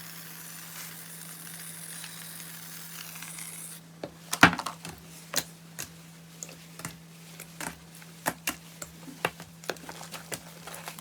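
Slime being handled close to the microphone: a steady fizzing crackle at first, then, after a cut, irregular sticky clicks and pops, the loudest about four and a half seconds in. A steady low hum runs underneath.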